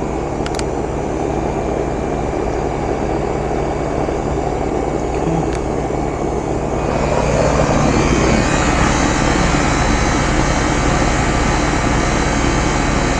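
A 30-year-old Ruud outdoor unit running steadily: a low compressor hum under the rushing of the condenser fan. There are a couple of faint clicks early on, and about seven seconds in the rush turns brighter and a little louder.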